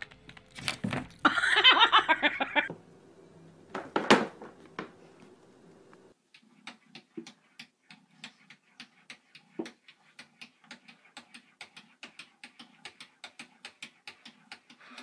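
A cat's paws tapping rapidly on a bathroom mirror as it bats at its own reflection, soft taps at about four a second through the second half. Before that come scattered clicks, one sharper knock, and a short burst of a voice or laughter.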